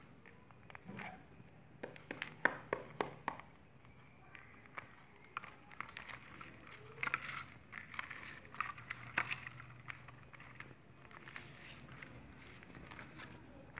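Fingers pressing and poking clear glitter slime, giving a quick run of small sharp pops and clicks about two to three seconds in, then softer, scattered clicks and handling noise.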